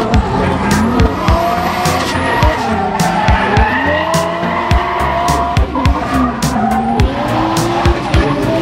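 Background music with a steady beat laid over a drifting Toyota Cresta GX71, its engine revving up and down and its tyres screeching as it slides.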